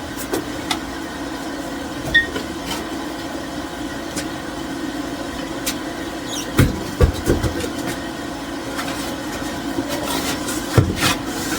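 A removed car wheel and tyre being handled and moved under the car, with a few thumps and clunks partway through and again near the end, over a steady hum.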